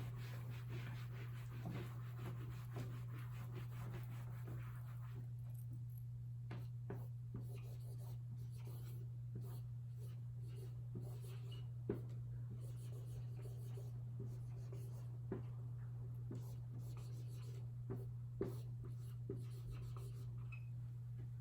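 Writing by hand: a writing tool scratching in short strokes, with scattered light taps and clicks, over a steady low electrical hum.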